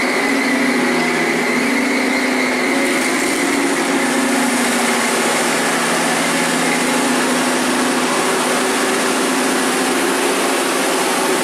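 Boat travel lift's engine running steadily as the lift moves with a sailboat hanging in its slings, with a thin high whine that fades out about three seconds in.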